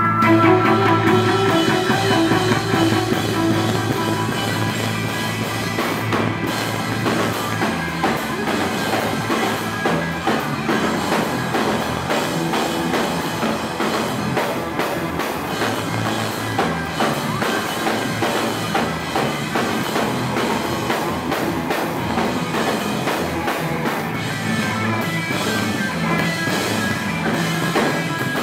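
Rock music with a drum kit and guitar, playing steadily throughout.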